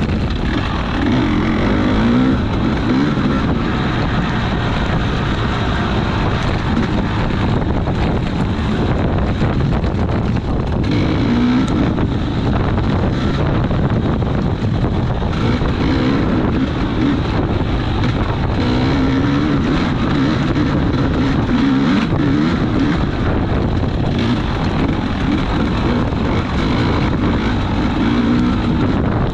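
Small off-road racing engine running hard, its pitch rising and falling with the throttle, with wind buffeting the microphone.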